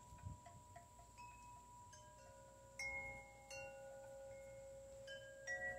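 Wind chime ringing: several notes struck one after another, each hanging on for a second or more, loudest about three seconds in and again near the end. A faint crunch of a Siberian husky chewing raw chicken bone comes just after the start.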